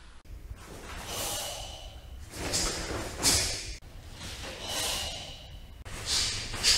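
A karateka's forceful, hissing breaths while performing a kata, about four of them, each a surge of breath noise.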